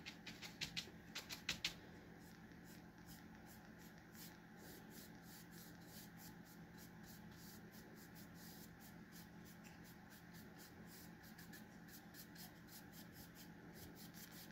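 Dry chip brush bristles scratching on paint and wood: a few sharper scrapes in the first two seconds as the brush is loaded from a paper plate, then a long run of faint, quick back-and-forth strokes across the rough board. This is dry-brushing dark paint on to give the wood a weathered look.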